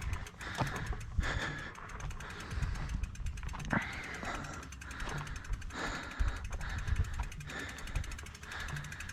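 Mountain bike being pushed uphill: the rear freehub ticks rapidly as the wheel rolls, over low rumbling knocks from the bike, with a rider's heavy breathing every second or two.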